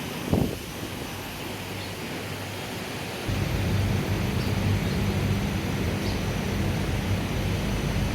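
Wind noise, a single knock just after the start, then a steady low machine hum that starts about three seconds in and carries on.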